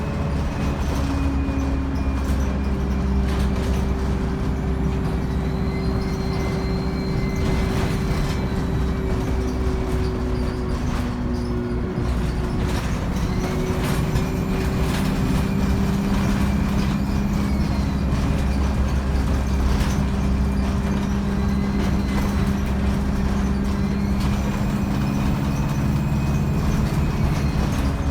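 ADL Enviro 200 single-deck bus under way, its diesel engine running with a three-speed Voith automatic gearbox and a turbo whine that rises and falls. About twelve seconds in the engine note dips, then climbs again as the bus pulls on.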